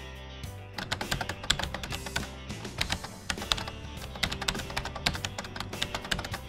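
Computer keyboard typing: a quick, uneven run of key clicks that starts about a second in, over soft background music.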